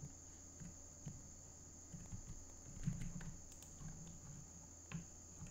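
Faint, irregular clicks and taps of a computer keyboard and mouse in use, over a steady high-pitched electrical whine.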